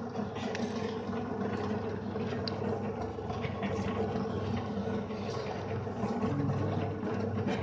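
Pouch packing machine running with a steady hum made of several fixed tones, with a few light ticks and clicks.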